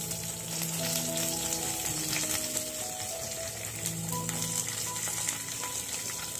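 A tempering of mustard seeds, cumin, urad dal, curry leaves, green chilli and ginger sizzling steadily in hot oil in a pan, with scattered small crackles. Background music with slow held notes plays under it.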